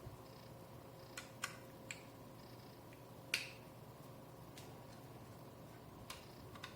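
Scattered small clicks and taps from handling laptop parts while an SSD is fitted, about seven in all, irregularly spaced; the sharpest comes a little past the middle. A faint steady hum lies underneath.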